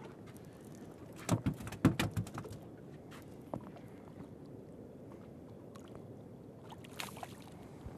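Water lapping against a small fishing dory's hull, with a quick run of sharp knocks and clicks about a second in and a couple of single clicks later.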